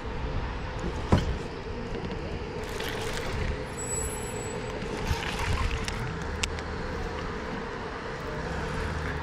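Steady outdoor background noise with a constant hum and a few sharp clicks, one about a second in and another past six seconds.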